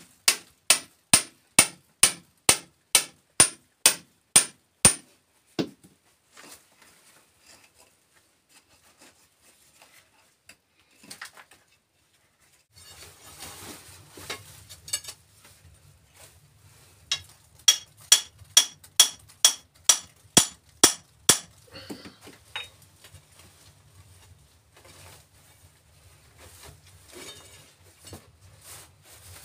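A hand hammer striking a steel chisel into rock, a fast run of sharp ringing metallic blows at about two and a half a second, then scattered quieter knocks and scrapes, and a second run of the same blows midway through.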